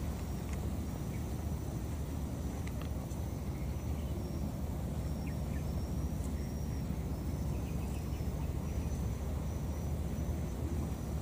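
Steady outdoor background noise: a low, even rumble, with faint high-pitched chirping and a few small clicks over it.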